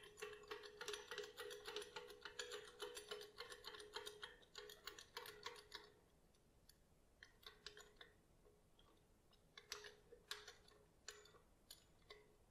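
Floor jack being moved into position under the car: a rapid metallic clicking rattle for about the first six seconds, then a few scattered clicks and knocks.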